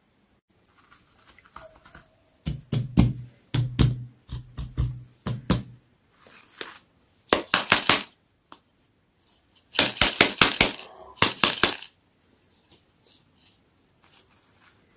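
Hands handling plastic toy-capsule lollipops: quick clicks and crinkles of hard plastic and wrapping, with dull knocks as they are set down, in three bunches.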